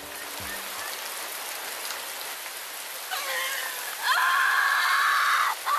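Steady heavy rain. About three seconds in, a woman's voice cries out, rising to a loud, long scream that breaks off just before the end.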